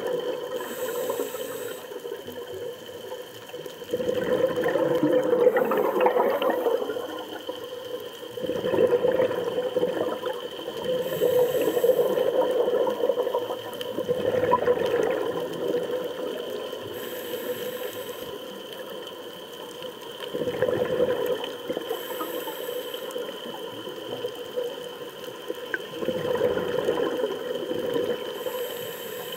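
Scuba diver's exhaled bubbles leaving the regulator underwater, rushing out in bursts every few seconds, about six times, with quieter inhalations between.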